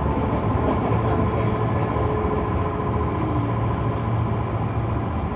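Kintetsu 6020-series electric train running, heard from inside the car: a steady rumble of wheels on rail and running gear, with a faint steady whine over it.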